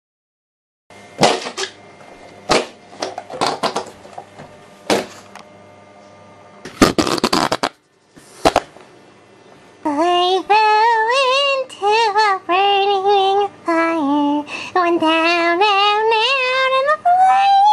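Sharp knocks and short rustling handling noises, then from about ten seconds in a high-pitched voice singing a wavering melody on its own, with no accompaniment.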